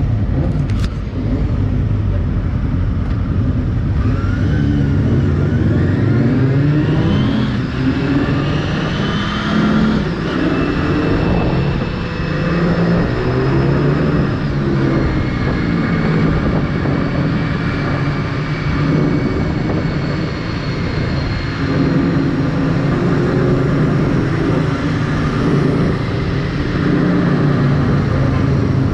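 Honda Hornet 250's inline-four engine accelerating through the gears, its pitch climbing and dropping back at each shift, then running at a steadier cruise, with road and wind rush on the helmet-mounted camera.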